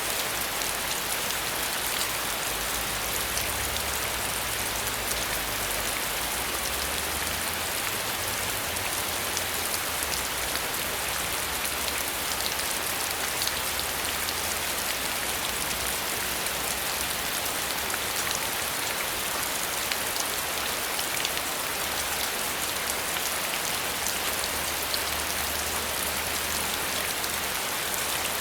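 Steady rain falling, an even hiss with many fine, close drop patters throughout.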